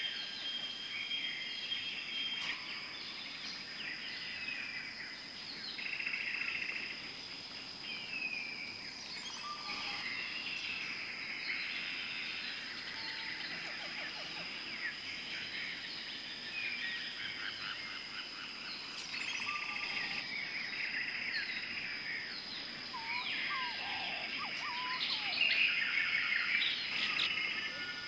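Many birds chirping and calling, overlapping short trills and whistles, over a steady high-pitched whine.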